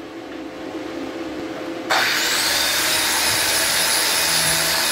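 Angle grinder running against the weld bead of a steel plate joint, cleaning it between passes. It comes in suddenly and loud about two seconds in, a steady rushing noise with a thin high whine, after a quieter stretch.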